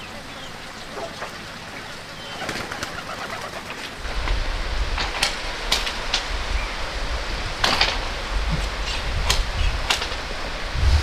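Farmyard birds calling: a few short, sharp calls from about halfway through, over a low rumble that starts about four seconds in.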